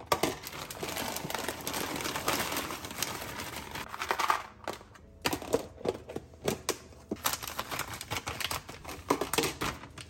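Frozen sweet corn kernels rattling out of a crinkly plastic packet into a plastic storage box, a dense run of small clicks and rustling. About halfway through this gives way to separate sharp clicks and knocks as the plastic box and frozen food are handled.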